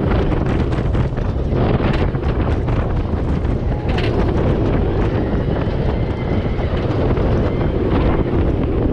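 Wind buffeting the action camera's microphone over the steady rumble and clatter of a roller coaster train running at speed on Iron Gwazi's steel track.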